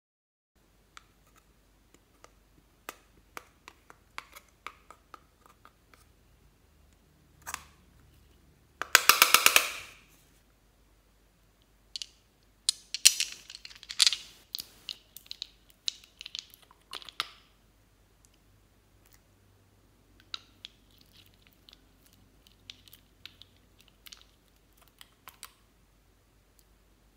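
Small plastic and glass clicks and taps from makeup being handled: an eyeshadow palette and a handful of glass nail polish bottles knocking and clinking together. A loud, rapid rattle of many ticks comes about nine seconds in, and a busy run of clinks and knocks from about thirteen to seventeen seconds.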